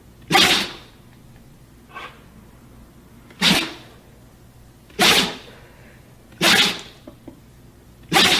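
Dog sneezing over and over: six sharp sneezes about a second and a half apart, the second one much softer than the rest.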